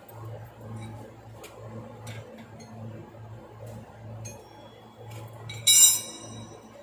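A sharp metallic clink with a short ring, as of a metal tool or fitting striking metal, about five and a half seconds in. It is the loudest sound, set over a low machine hum that pulses about twice a second, with a few faint ticks of handling.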